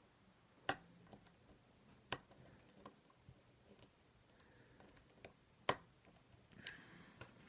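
Lock pick and tension wrench working in an ASSA 700 lock: scattered small metallic clicks and ticks. The sharpest come about a second in, about two seconds in and near six seconds, with a short faint scrape near the end.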